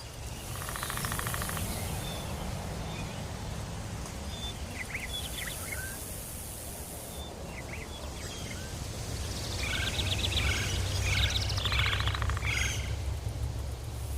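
Tropical forest ambience. High insect buzzing comes and goes, and short bird chirps and calls grow denser in the second half, all over a steady low rumble.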